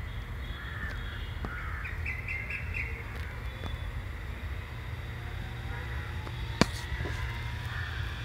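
Birds chirping and calling over a steady low rumble, with a single sharp click about six and a half seconds in. In the second half a faint whine rises slowly in pitch as the 700-size RC helicopter's electric motor begins spooling up the rotor.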